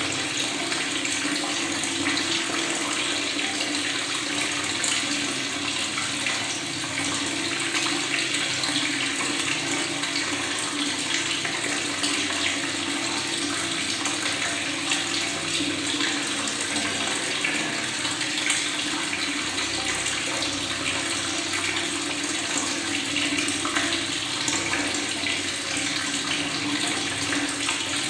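Water running steadily from a tap and gurgling, with a continuous bubbling and splashing hiss.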